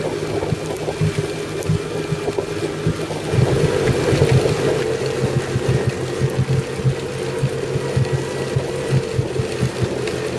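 Engine running steadily under load with a constant drone, mixed with irregular rattling and clattering, slightly louder about three to five seconds in.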